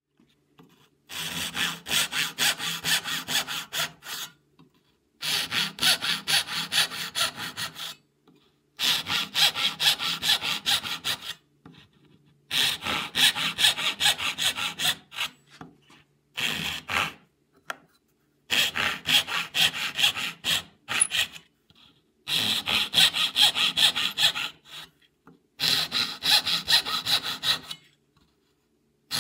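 Hand saw cutting dovetail kerfs into the end of a drawer board, sawing in about eight runs of quick back-and-forth strokes. Each run lasts a few seconds, and there are short pauses between them.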